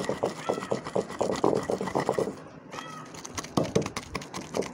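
Long wooden pestle pounding wet tamarind chutney in a stone mortar, dull thuds about four a second with a pause of about a second midway. Two short, high animal calls sound over it, one early and one about three seconds in.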